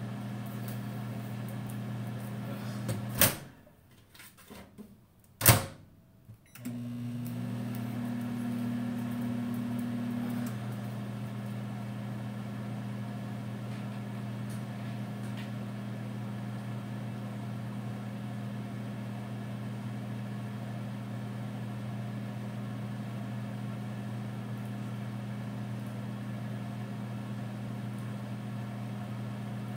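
Microwave oven running with a steady electrical hum while cooking a steak. About three seconds in a sharp click cuts the hum off; a second sharp click follows a couple of seconds later, and the hum starts again, with an added higher tone for a few seconds before it settles.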